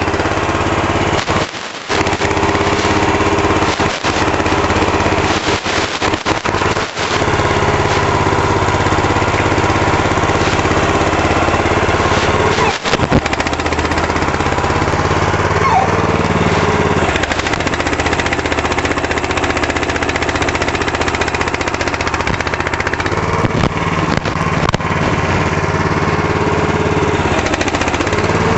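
The Burro walkie forklift's small engine runs steadily and works its hydraulics, its speed dipping and rising a few times while the forks lift and extend under a 3,000 lb pallet, at the machine's rated load. The sound cuts out briefly several times in the first seven seconds.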